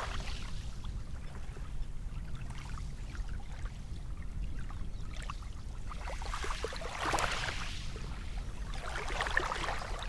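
Small waves from calm sea water lapping at the shoreline, washing up strongest about seven and nine seconds in, over a low steady rumble.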